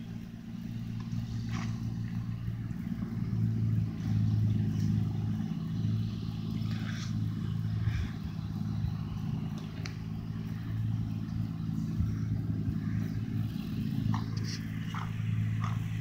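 A steady low engine hum runs throughout, with a few faint short sounds on top.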